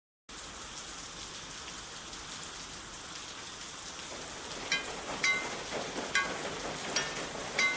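Rain sound effect: a steady hiss of rain that starts abruptly, joined about halfway through by pitched plinking water drops, roughly two a second.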